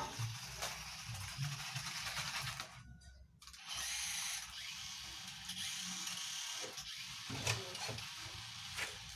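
A 1:18-scale toy RC car's small electric motor and plastic gearbox whirring as it drives. It cuts out briefly about three seconds in, then runs on.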